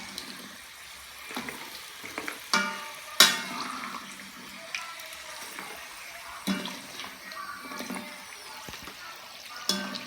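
Hot oil sizzling steadily as yam chips deep-fry, broken by several sharp ringing clinks of a metal spoon striking the pot as the chips are stirred and lifted out. The loudest clink comes about three seconds in.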